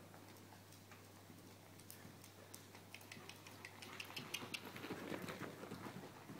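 A pony's hoofbeats on the sand footing of an indoor riding arena, faint at first and louder from about four seconds in as it passes close by, with scattered light clicks over a steady low hum.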